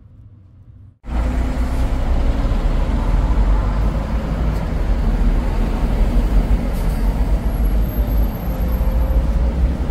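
Loud, steady city street traffic noise with a heavy low rumble, starting suddenly about a second in.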